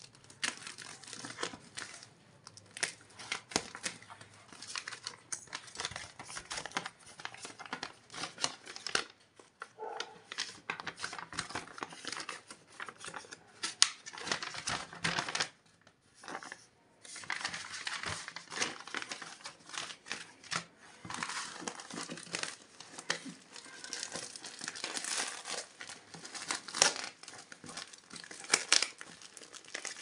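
Plastic wrapping and packing tape being handled and torn off a parcel by hand: irregular crinkling and tearing crackles, with a brief lull about halfway through.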